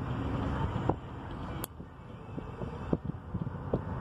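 Low, steady rumble of a stopped car idling, with wind on the microphone. A few sharp clicks come at uneven spacing.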